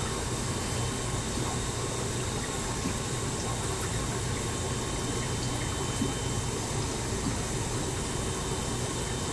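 Steady water noise of a running aquarium filter, with a low hum underneath.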